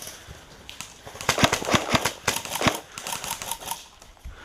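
Airsoft guns firing: a quick, irregular run of sharp snapping clicks starting about a second in and stopping shortly before the end.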